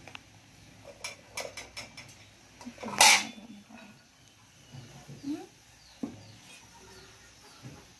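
Ceramic plate and bowl clinking and scraping as chopped vegetables are tipped from the plate into the bowl, with a few light clicks early and one loud clatter about three seconds in. Faint short high chirps follow in the second half.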